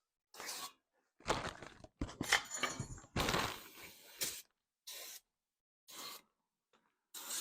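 Aerosol brake cleaner sprayed onto a new brake rotor in a string of short hissing bursts, with a longer spray in the middle, degreasing the rotor before it is fitted.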